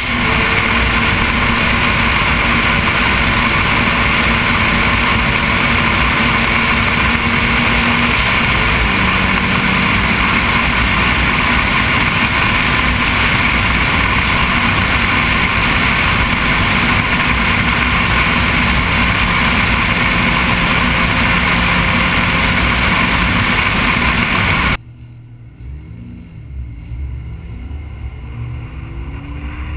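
Noble M400's twin-turbo V6 engine cruising at steady revs, nearly buried under loud wind and road rush on an outside-mounted camera. About 25 seconds in the rush drops away suddenly, leaving a quieter engine note that falls and then rises in pitch as the car pulls away.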